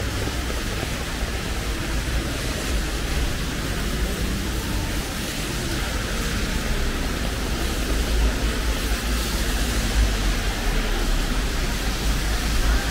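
Steady hiss of falling rain over a low rumble.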